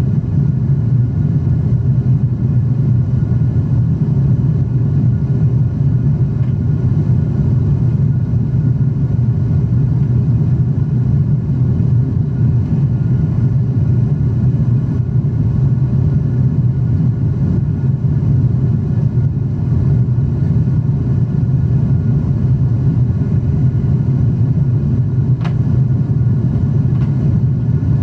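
Steady cabin noise inside a Boeing 777-300 airliner in flight: a deep, even rumble of engines and airflow, with one faint click near the end.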